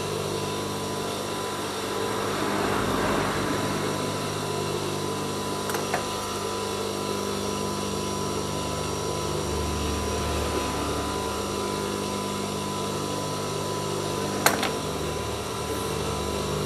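Industrial sewing machine's motor running idle with a steady hum while nothing is being stitched. It is broken by a couple of sharp clicks, a small one about six seconds in and a louder one near the end.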